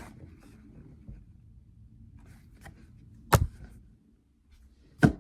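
Two sharp taps, one a little over three seconds in and one near the end, over faint room noise.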